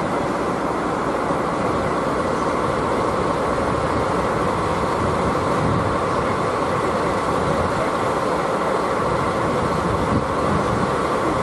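Steady, even train noise with no clear rhythm.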